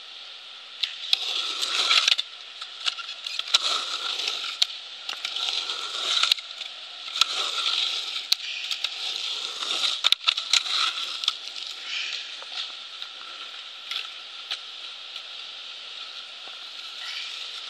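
Skateboard wheels rolling over a concrete bowl, a rushing noise that swells and fades every second or two as the board carves, with sharp clacks of the board and trucks striking the concrete.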